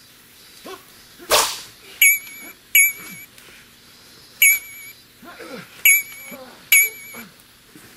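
Sword-fight sound effects: a blade swishing through the air about a second in, then five metallic sword clashes. Each clash is a sharp strike followed by a short, wavering high ring.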